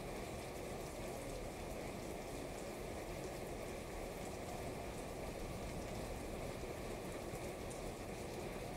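Steady rain falling on a wet street, with many small drop ticks close by from rain hitting the umbrella fabric over the microphone.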